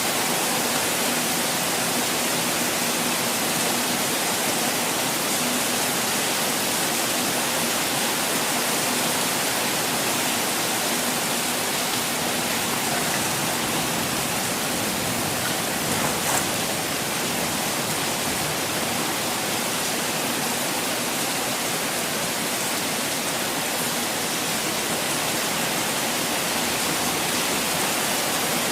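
Constantly falling water making a steady, even rush, with one brief faint tap about sixteen seconds in.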